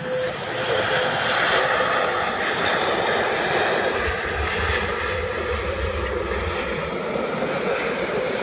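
Airbus A330-300's Rolls-Royce Trent 700 jet engines running in reverse thrust as the airliner touches down and rolls out: a loud, steady rush of jet noise that swells in the first second and holds. A deeper rumble joins it for about two seconds in the middle.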